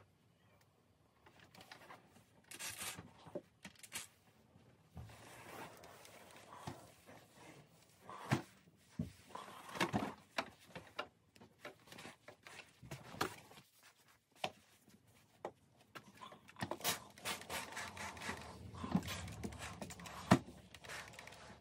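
Clothes iron being slid, lifted and set down on a towel laid over starched denim jeans. Scattered soft knocks and fabric rustling come at irregular moments throughout.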